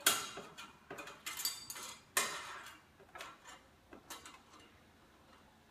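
Steel workpieces clinking and knocking against a metal welding table as they are set in place: a string of separate sharp metallic knocks, the loudest right at the start and about two seconds in.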